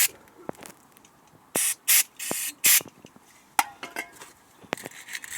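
Brake caliper being cleaned with aerosol brake cleaner and a brush: several short hissing bursts, most of them grouped in the middle, with a few light clicks.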